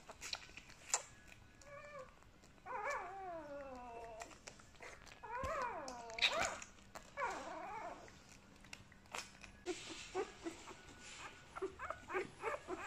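Newborn puppies crying and whimpering: several long, wavering, mewing cries in the first eight seconds, then a run of short squeaks and clicks near the end.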